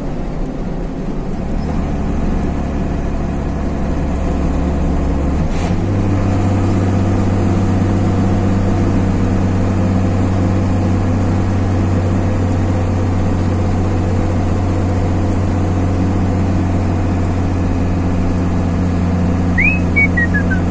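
Truck engine running steadily with road noise, heard from inside the cab. About five seconds in, a click, and the engine note steps up in pitch and stays higher. A short, high, falling chirp near the end.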